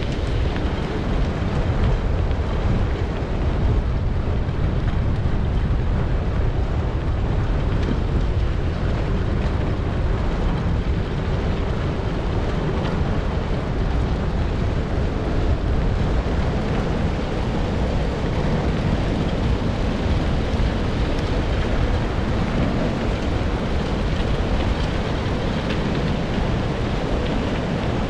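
Steady wind noise on the microphone over the rumble of a wheeled dog-mushing rig rolling along a dirt road behind a running dog team.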